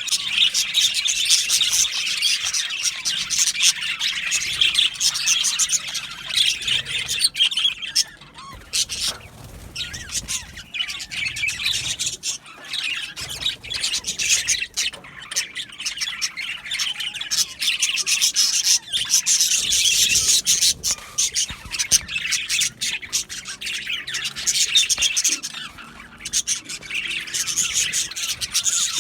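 A colony of budgerigars chirping, warbling and squawking together in a busy, continuous chatter.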